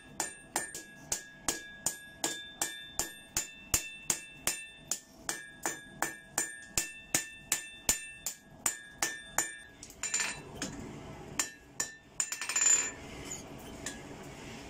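Hand hammer striking a glowing Damascus steel knife billet on an anvil, about three blows a second, each blow leaving the anvil ringing, as the blade's tip is forged to a point and the handle roughed out. About ten seconds in the regular blows give way to a harsher, noisier stretch with quicker, lighter strikes.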